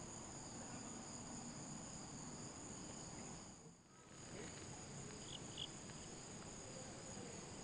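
Steady high-pitched chorus of insects, several unbroken tones layered together, dipping briefly about halfway through.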